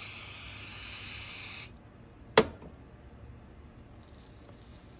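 Aerosol parts cleaner spraying onto a ball bearing in a steady hiss for a little under two seconds to strip the oil off it, followed by a single sharp click.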